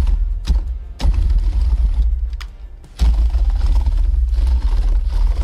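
Cordless drill turning the drive shaft of a 3D-printed tank track unit, the plastic track running over snow-covered deck boards, with background music.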